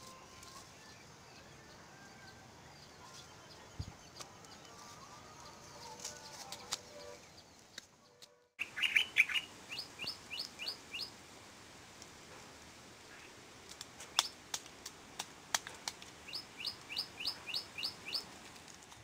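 A bird singing in quick runs of short rising chirps, about six a second, once about halfway in and again near the end, with a few sharp clicks between the runs.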